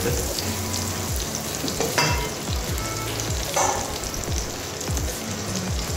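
Butter sizzling and foaming as it melts in a hot frying pan, a steady crackle with a couple of sharper pops about two and three and a half seconds in.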